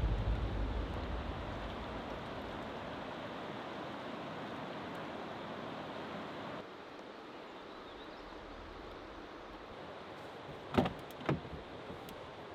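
Music fading out, then a steady outdoor noise that drops to a quieter level about halfway through. Two short knocks come close together near the end.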